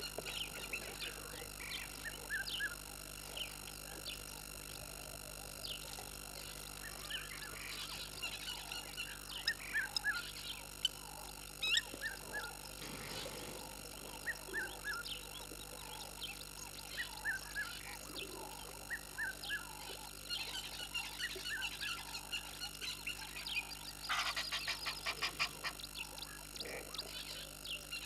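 Frogs and birds calling at a waterhole: many short, scattered chirps and croaks, with a quick rattling series of calls near the end.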